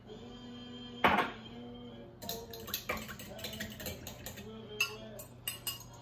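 Metal spoon clinking and scraping inside a small glass jar of capers as they are spooned out over a glass measuring cup: one sharp clink about a second in, then a quick run of clinks and taps.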